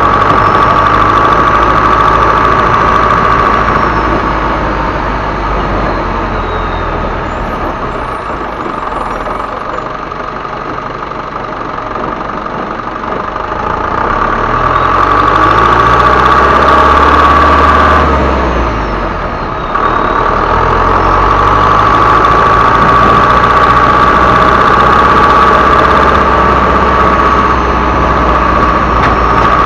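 Isuzu Elf HD truck's turbocharged diesel engine running with a steady high-pitched turbo whistle. The engine and whistle drop back for several seconds, then the engine revs up and the whistle returns loudly about halfway through. After a brief dip, the engine runs on with the whistle.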